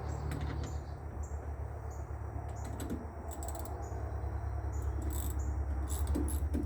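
Insects, probably crickets, chirping in a steady high-pitched rhythm about once a second, over a continuous low rumble. A few sharp clicks and knocks come from hand work as the tractor battery is being taken off.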